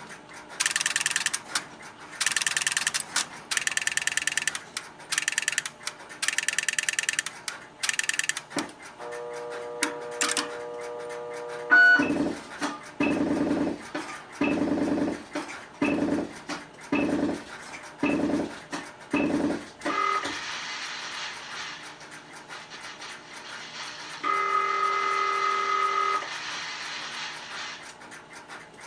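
Rotary dial pulses clicking down the line from a Western Electric 1D2 payphone through a step-by-step wire spring coin trunk, six digits in quick runs of clicks. They are followed by a steady line tone, a series of about eight regular low buzzing bursts and another short tone as the call is switched through the exchange.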